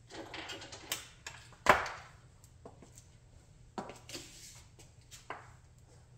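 Model Chrysler 300B car creaking and crunching under a sandal heel pressing down on its roof, with one loud sharp knock about a second and a half in. A few more sharp heel knocks and crackles follow as the weight shifts and the heel comes down on the concrete floor.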